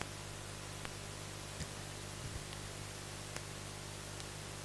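Quiet room tone: a steady low hum and hiss, with a handful of faint, scattered clicks.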